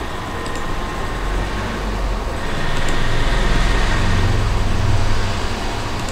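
Steady background noise with a low rumble that swells about halfway through and eases near the end.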